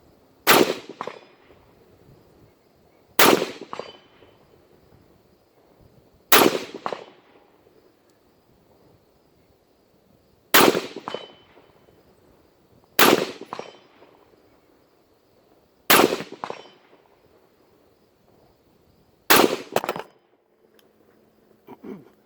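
Seven aimed semi-automatic shots from a Ruger AR-556 MPR rifle in 5.56, a few seconds apart, each a sharp crack with a short echo. A fraction of a second after each shot comes a second, weaker hit with a metallic clang, like a steel target being struck.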